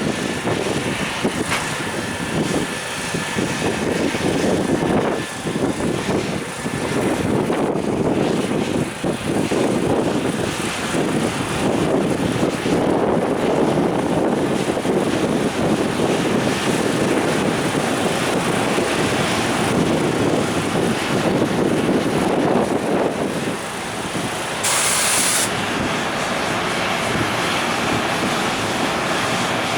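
Container flatcars of a freight train rolling past, a steady rumble of steel wheels on the rails. About 25 seconds in there is a brief high hiss lasting about a second.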